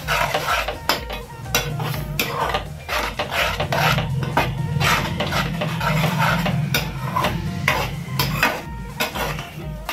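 A metal ladle stirring and scraping egg bhurji around a steel pan, with repeated irregular scrapes and clinks against the metal. A steady low hum runs underneath.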